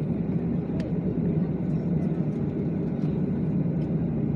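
Steady jet-engine drone and cabin noise heard inside an airliner's cabin as it taxis, a low even hum with no changes.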